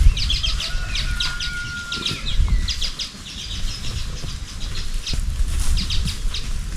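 Small birds chirping in rapid twittering runs, with a low rumble underneath and a short thin whistle about a second in.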